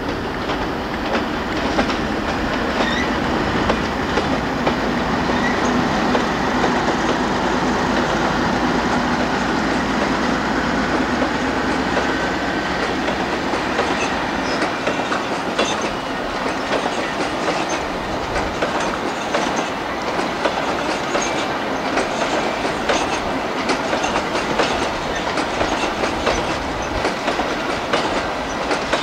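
Class 58 diesel-electric locomotive, with its Ruston-Paxman V12 diesel engine, hauling a long train of HAA coal hopper wagons past. The engine is loudest in the first half. In the second half the hoppers' wheels run clickety-clack over the rail joints with many short clicks.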